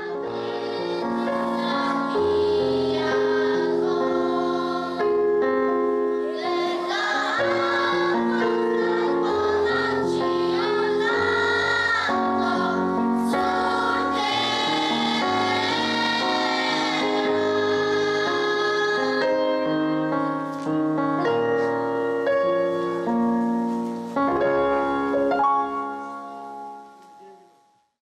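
A choir singing slow, sustained chords over an accompaniment with a low bass line. It fades out over the last two seconds.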